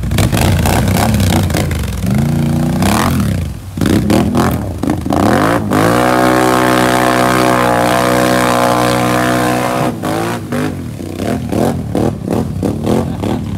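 Can-Am Outlander 650 ATV's V-twin engine revving under load as it ploughs through mud and deep water. The revs climb about five to six seconds in and hold high for some four seconds, then break into short throttle blips near the end.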